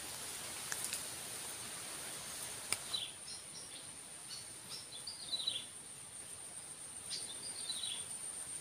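Outdoor rural ambience: a steady high insect buzz, with short falling bird chirps three times, and a couple of faint clicks early on.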